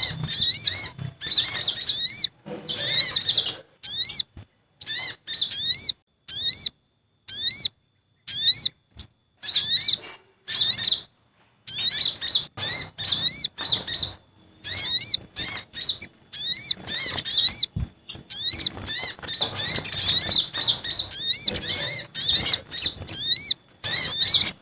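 Bird-lure recording of small sunbirds known locally as sogon (sogok ontong) and konin (kolibri ninja) calling in agitation. Rapid strings of short, high chirping notes are chopped by sudden breaks into silence.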